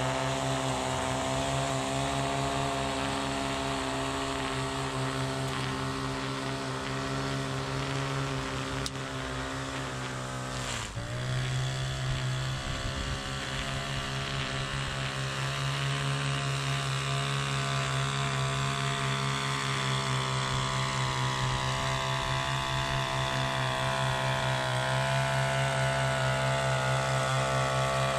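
Handheld two-stroke string trimmer engine running steadily at high revs. About ten seconds in its pitch drops sharply and then climbs back up.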